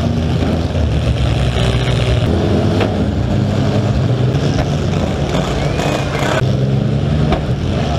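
Demolition derby car engines running hard and revving, heard loud through a hood-mounted camera, with a couple of sharp bangs from collisions, about three seconds in and near the end. The sound changes abruptly about six seconds in.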